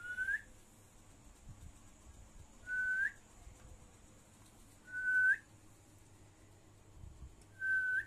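Rose-ringed parakeet whistling: four short whistles a couple of seconds apart, each a level note that curls upward at its end.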